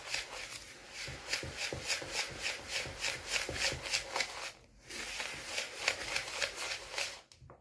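A whisk stirring dry fine semolina and sugar in a bowl: rhythmic scratchy swishes, about five strokes a second, with a brief pause about two-thirds through, stopping near the end.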